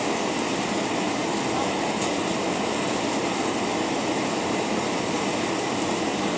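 Steady jet cabin noise inside an Airbus A320 with IAE V2527 engines: an even rush of engine and airflow noise that holds a constant level.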